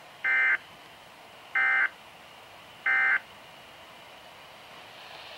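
Three short, buzzy digital data bursts about 1.3 seconds apart from a weather radio SAME (Specific Area Message Encoding) alert signal, each a fraction of a second long. Short triple bursts like these are the end-of-message code that closes a weather warning broadcast.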